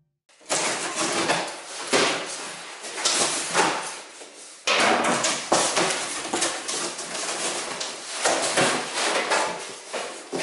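Cardboard delivery box being opened by hand: packing tape cut and pulled, flaps pushed open and the packed contents shifted, a steady run of scraping and rustling with many short knocks. It grows suddenly louder about five seconds in.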